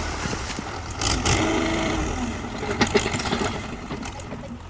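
Heavy construction machine's engine running steadily, with a few sharp knocks about a second in and a quick pair near three seconds.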